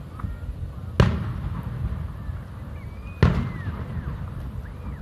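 Two fireworks bursts booming, one about a second in and another about two seconds later, each trailing off in an echo.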